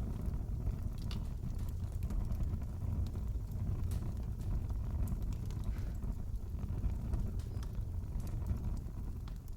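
Wood fire in a fireplace burning: a steady low rumble with scattered sharp crackles and pops.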